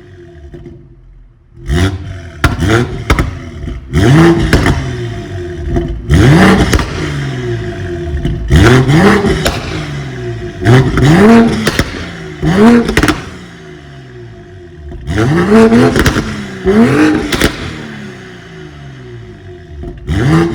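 BMW X4 M40i's turbocharged inline-six through an aftermarket Supersprint exhaust, revved in a series of short sharp blips, the pitch jumping up and sinking back each time, with loud pops and crackles from the exhaust. It sits at a quieter idle for about the first second and a half.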